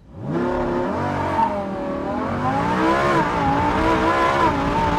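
Lamborghini Huracan's V10 engine accelerating hard from a launch, heard from inside the cabin. The engine note climbs in pitch and drops back at each upshift, about two seconds in and again about a second later.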